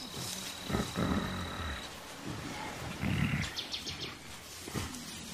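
Mountain gorillas giving low grunting rumbles, one about a second in and another around three seconds. A steady high insect tone runs under them and stops about two seconds in, and a few short high chirps follow a little after three seconds.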